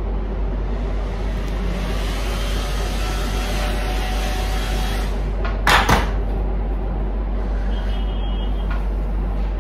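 Small handheld battery electric fan running, a steady whir of blowing air. A brief loud rush or knock cuts in a little under six seconds in.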